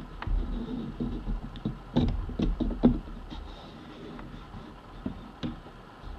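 Irregular knocks and clicks from hands working fabric on a sewing machine's bed and presser foot, bunched in the first three seconds and sparse after.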